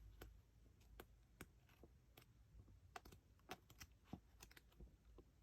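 Faint, irregular light clicks and ticks of paper handling as a photobook's pages are flipped through, with near silence between them.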